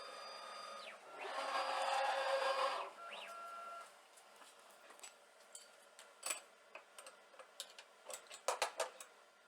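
Stepper motors of a CNC machine whining through a few short moves of about a second each, the loudest about a second in. Light clicks and knocks follow.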